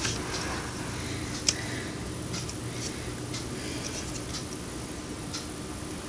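Small clicks and taps from hands working glitter tape onto a plastic light switch cover, the sharpest about one and a half seconds in, over a steady low hum.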